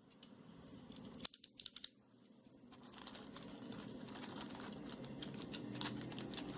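Handling noise from an album package being unboxed: a quick run of sharp clicks about a second and a half in, then rustling and light tapping that grows louder.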